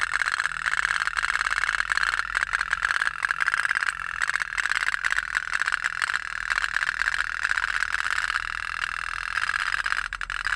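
Toy pop-pop (otok-otok) boat running, its wick-heated tin steam boiler giving a rapid, continuous popping rattle.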